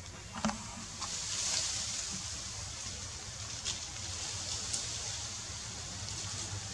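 Outdoor forest ambience: a steady hiss with a low hum underneath and a few scattered short clicks.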